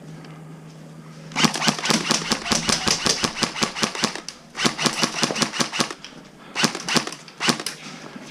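Airsoft electric rifle (AEG) firing in full-auto bursts at about ten shots a second: one long burst of about three seconds, a second burst of about a second and a half, then two short bursts near the end.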